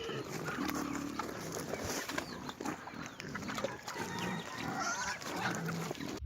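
Animals making short, low calls over a busy bed of clicks, knocks and shuffling; the sound cuts off abruptly at the end.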